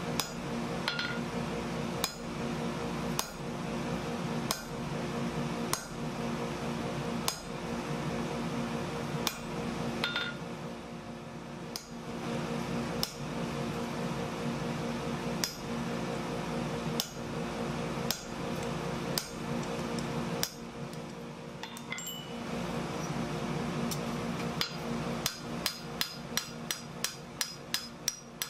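Hammer blows on a hand punch driven into hot steel on an anvil, single ringing strikes about one to one and a half seconds apart as ornament and light marks are punched in. Near the end the hammering quickens to two or three blows a second as the steel is forged directly. A steady hum runs underneath.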